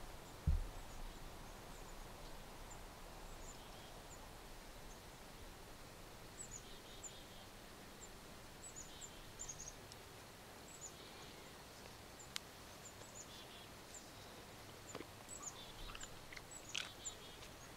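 Faint woodland ambience with many short, high bird chirps scattered throughout, plus a knock just after the start and a single sharp click about twelve seconds in.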